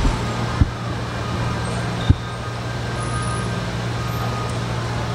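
Steady low hum of airport arrivals-area background noise, with a couple of faint steady tones above it. Two brief low thumps, a little over half a second in and about two seconds in.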